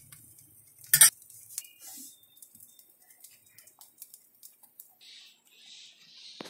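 A single sharp metallic clink about a second in, a metal puja vessel knocked against the tray, followed by a few faint light taps.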